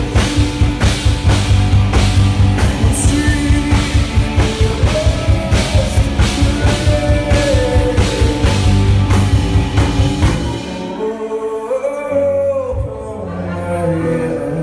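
Live rock band playing: electric guitars, bass, a drum kit and a Nord Stage keyboard, with a male lead singer. The drums keep a steady beat, then stop about ten and a half seconds in, leaving bass, keys and voice more quietly.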